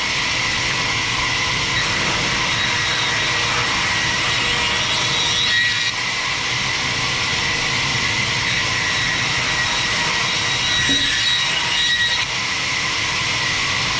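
Sawmill band saw running and cutting through a log: a loud, steady whine with a high tone over it, dipping briefly twice.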